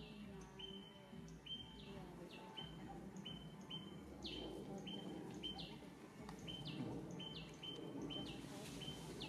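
A bird calling over and over, each call a short falling note paired with a short, level, high whistle, repeated steadily more than once a second. Beneath it is a faint, steady background noise.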